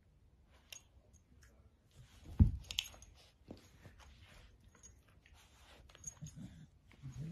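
A dapple dachshund puppy and a grey curly-coated dog play-fighting: mouthing and nipping at each other with soft clicks and scuffling on a padded dog bed, and one thud about two and a half seconds in.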